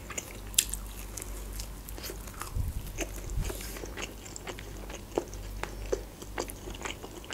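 Close-up chewing of a mouthful of pizza: wet mouth sounds with many small crunches and clicks.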